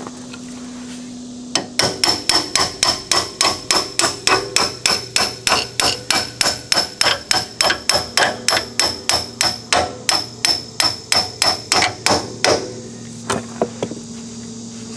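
Hammer tapping a long pivot bolt through a trailing-arm mount: a steady run of about three to four ringing metal strikes a second. It starts about two seconds in and stops a couple of seconds before the end.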